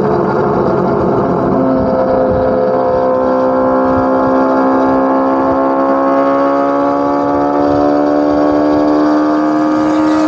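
Chevrolet Corvette C8 Z06's flat-plane-crank 5.5-litre V8 exhaust under load. The note settles lower about a second and a half in, then climbs slowly and steadily as the revs build.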